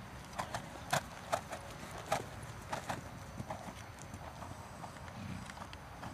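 Hoofbeats of a ridden grey mare on a sand arena: a run of sharp, uneven knocks, loudest in the first half and fainter in the second half as the horse moves away.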